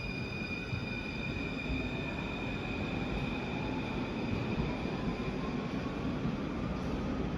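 Paris Métro MF 01 train running in the station: steady rumble of wheels on rail with thin high tones that fade away, and a faint whine rising in pitch in the second half.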